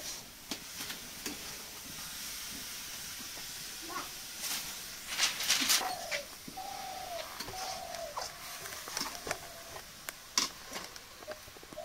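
Grated coconut and sugar frying in a metal wok over a wood fire: a steady sizzle with scattered scrapes and clicks of stirring, loudest in a clatter of scraping about four to six seconds in. Doves coo in a short series of rising-and-falling calls a little past the middle.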